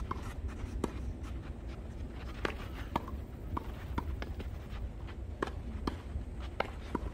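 Tennis rally on a hard court: rackets striking the ball and the ball bouncing, about ten sharp pops at uneven intervals, some coming in quick succession during a net exchange.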